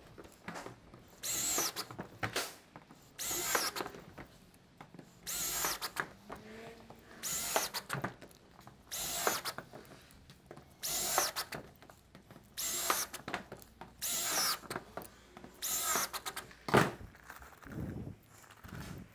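Cordless drill driving hex-head roofing screws through corrugated steel roof sheeting into the battens, one screw after another: about nine short whining runs, roughly one every two seconds.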